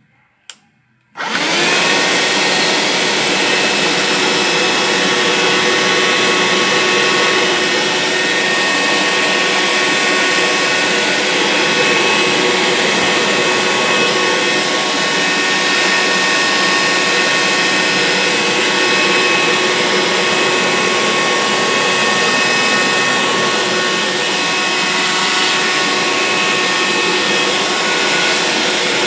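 Handheld vacuum cleaner switched on: a click, then about a second in the motor comes up almost at once and runs steadily, a loud rushing noise with a steady whine of several tones.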